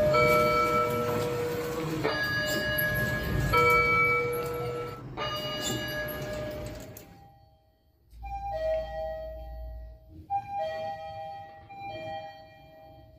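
Elevator arrival chimes: for the first seven seconds a Schindler 3300 AP lift's two-note electronic chime sounds over and over. After a short break, a 2014 Mitsubishi NEXIEZ lift's higher two-note chime repeats several times.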